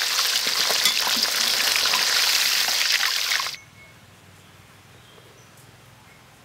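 Battered pork ribs deep-frying in hot oil in a wok: a loud, dense sizzle with many small crackles. It cuts off suddenly about three and a half seconds in, leaving only a faint background.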